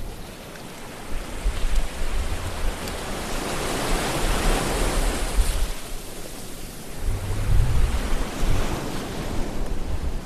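Sea waves breaking and washing in, a steady rush of surf that swells to a peak about four seconds in and builds again with a low rumble near the end.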